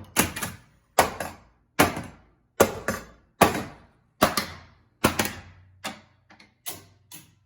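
Pinball machine solenoids firing one after another in the solenoid test: a sharp mechanical clack with a short ring about every 0.8 seconds, coming quicker and fainter near the end.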